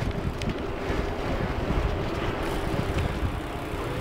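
Wind buffeting the microphone of a camera carried on a moving bicycle: an uneven low rumble with a faint steady tone underneath.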